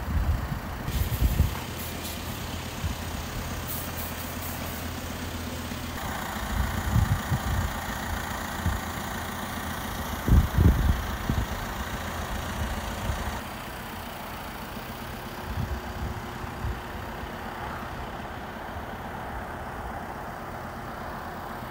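Diesel lorry engines idling in a truck park, a steady low hum. Occasional low rumbles break over it, the loudest about ten seconds in, and the hum drops a little after about thirteen seconds.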